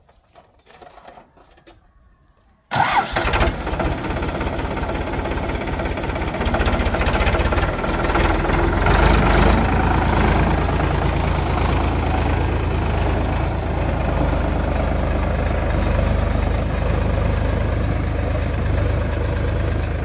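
Powertrac Euro 50 tractor's diesel engine starting suddenly about three seconds in, then running loudly and revving a little higher as the tractor pulls away with its loaded mud trolley.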